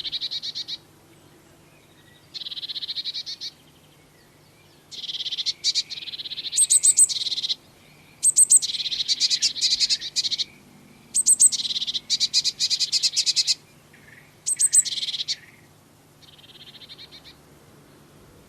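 Blue tits calling in repeated buzzy bursts of one to two seconds. Some bursts open with a few sharp high notes, and the calling is thickest in the middle, then tails off to fainter bursts near the end.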